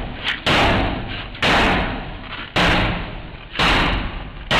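Loud bangs at a steady pace of about one a second, five in all, each with a sharp start and a long echoing tail.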